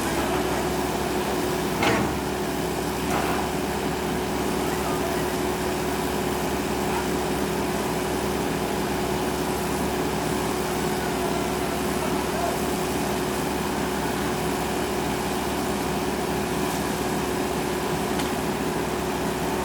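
Excavator diesel engine running steadily with a constant drone, with a single sharp knock about two seconds in.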